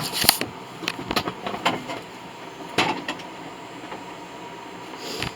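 A scatter of sharp knocks and clinks, several in the first two seconds, one at about three seconds and one more near the end, over a steady background hum.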